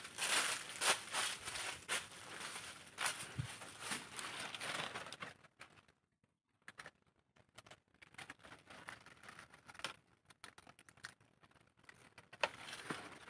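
Dry banana leaves crackling and rustling, with irregular sharp clicks, loudest for the first five seconds, then dropping away to faint scattered crackles after a moment of near quiet around six seconds in.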